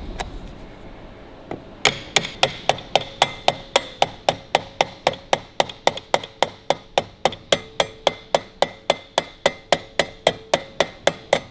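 A small hammer tapping a steel punch on the rim of a 1941 Harley-Davidson WL speedometer bezel, set on a steel bar: a couple of single taps, then from about two seconds in a steady run of light metallic taps, about four a second, each with a short ring. The punch is peening the bezel's lip over onto the new glass to hold the glass and face in place.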